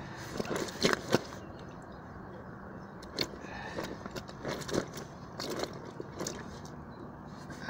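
Scattered rustles, crinkles and short knocks as a large carp is handled and held on a nylon unhooking mat, over a steady low background rumble. The two loudest knocks come about a second in.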